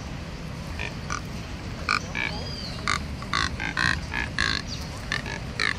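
Neotropic cormorants calling: a rapid run of short, rough, pig-like grunting croaks from several birds, starting sparsely and coming thick and fast from about two seconds in.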